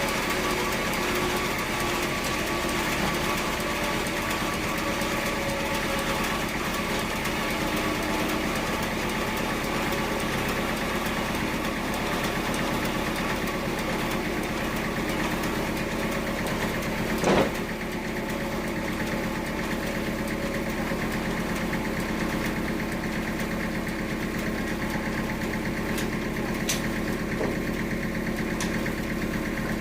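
Bandsaw sawmill running steadily with a constant engine hum. A single loud knock sounds a little past halfway, and a few sharp clicks come near the end.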